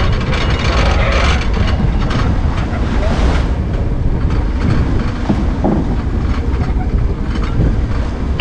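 Steady low rumble of a fishing boat's machinery as a gillnet is hauled aboard over the side by an electric net hauler, with irregular clicks and knocks from the net gear.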